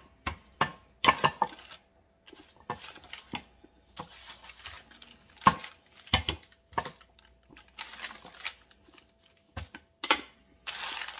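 Rolling pin rolling out pie-crust dough on parchment paper: a string of irregular clicks and knocks from the pin, with a short rustle of the paper near the end.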